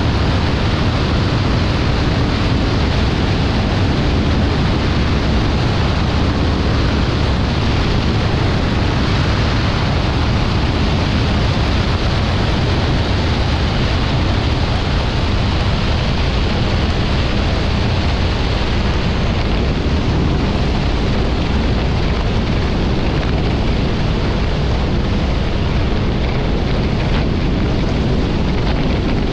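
Steady rush of wind over a wing-mounted microphone on a BRM Citius ultralight aeroplane, with its engine and propeller running underneath, through the final approach and landing.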